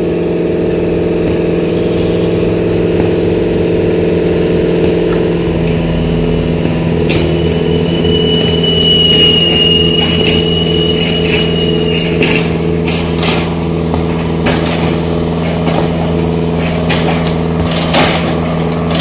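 Small excavator's diesel engine running steadily while it breaks down concrete hollow-block walls, with scattered knocks and crunches of breaking masonry, more of them in the second half. A high, thin squeal holds for about five seconds in the middle.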